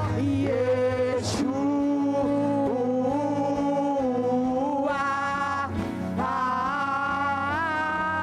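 Live worship music: a voice singing long held notes over a steady instrumental accompaniment.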